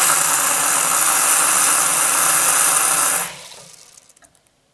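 Bathroom sink faucet running into the basin, filling it with the pop-up stopper closed; the tap is shut off about three seconds in, leaving a few faint clicks.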